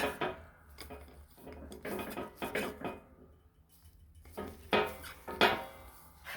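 Irregular metallic clinks and knocks of steel parts and tools being handled at a hydraulic shop press, loudest about five and a half seconds in.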